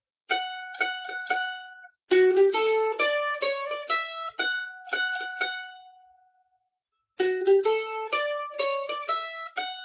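Mandolin picked in short phrases of an old-time fiddle tune: a brief run of notes, a longer phrase whose last note rings out, a pause of about a second, then playing again.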